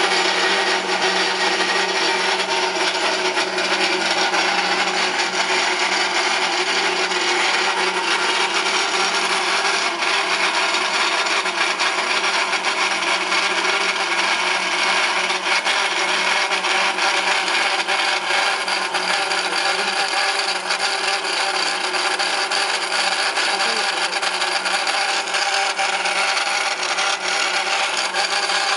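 Pin-on-disc wear tester running: the motor-driven disc spins under a loaded pin that rubs on its wear track. The result is a steady scraping noise over a constant hum.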